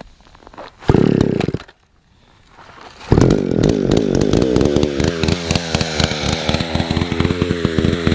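Power saw cutting through ice: a short loud burst about a second in, a brief pause, then running steadily from about three seconds in.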